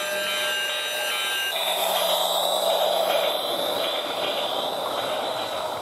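Battery-powered toy Christmas train running on its plastic track: an even motor-and-wheel whirr over a steady low hum, getting louder about a second and a half in as the locomotive and Santa sleigh car pass close by. Steady electronic tones from the toy sound before that.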